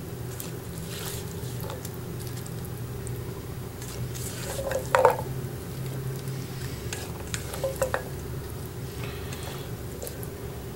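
Spatula pushing wet, dressed salad greens and chickpeas around on a ceramic plate, squishing with a few light taps and clicks against the plate; the loudest knock comes about halfway through. A steady low hum runs underneath.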